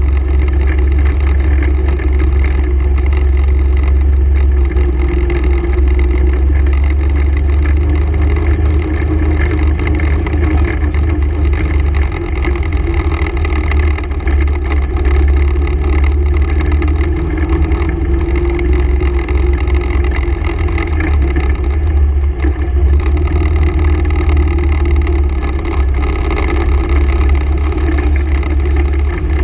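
Honda ATV engine running steadily while riding a dirt trail, a continuous heavy low rumble with only small changes in throttle.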